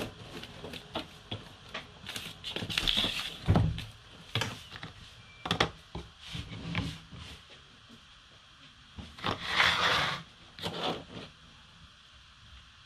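Kitchen handling sounds: a wire balloon whisk clicking and scraping in a plastic bowl of dry flour mix, then scattered knocks and two short hissy rustles as the whisk is set down and a plastic jug is handled.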